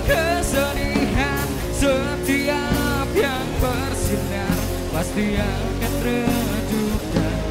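Rock band playing live: a male singer over two electric guitars, bass guitar and a drum kit.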